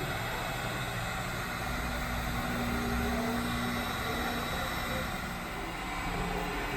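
Heat gun blowing steadily on an aluminum body panel, a constant hiss with a faint hum, warming the metal so the dent can be pulled without cracking.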